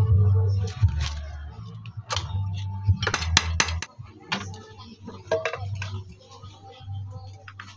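Sharp metallic clinks and taps from tools and the Honda Dream 100's right-side crankcase cover as it is worked loose from the engine, with a quick cluster of clinks about three seconds in, over low background music.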